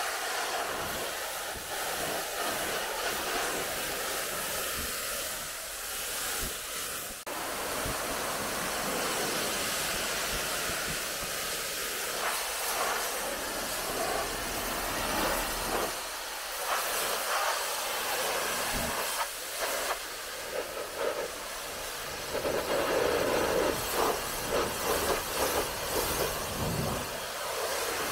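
High-pressure water jet from a pressure-washer lance rinsing a car's body panels: a steady hiss of spray, with an abrupt change about seven seconds in, and the hiss growing more uneven in the second half as the jet moves over the car.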